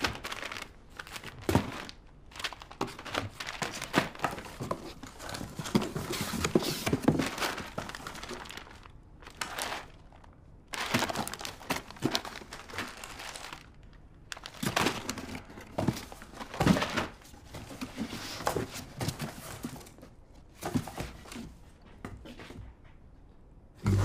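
Cardboard boxes and crinkly packaging being rummaged through by hand: rustling, crinkling and scraping of cardboard, with small knocks, in irregular bursts separated by short pauses.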